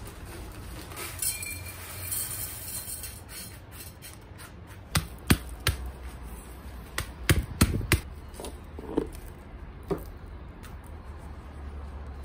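Hands in gardening gloves repotting a young olive tree: potting soil rustling and scraping, with several sharp knocks as the pots are handled. The knocks come in the middle, with a quick cluster a little past halfway.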